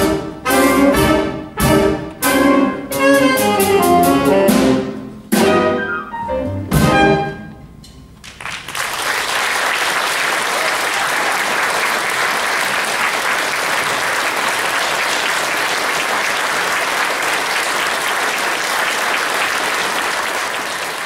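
Big band of saxophones, trumpets and trombones with drums playing the closing bars of a jazz tune as a string of short, punchy chords, the last one about seven seconds in. After a brief pause, audience applause starts and goes on steadily.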